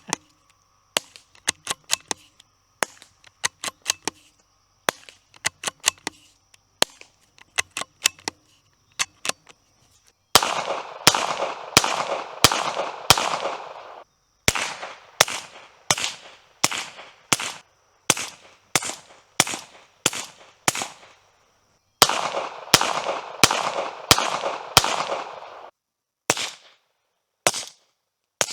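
A .22 rifle with a Hush Point .22 silencer firing CCI CB caps: only small groups of quiet clicks, the action and the shot, over the first ten seconds. Then, about ten seconds in, much louder suppressed .22 shots come in rapid strings of roughly two a second, each with a ringing tail, in three strings with short pauses.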